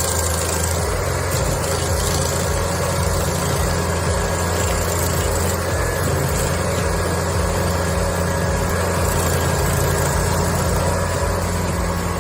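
Engine of a Carlton 7015 TRX tracked stump grinder running steadily at a constant speed, a steady low hum.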